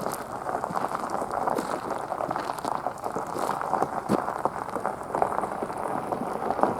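Vehicle tyres rolling slowly over an unpaved winter road, giving a dense, steady crackle with a few louder ticks.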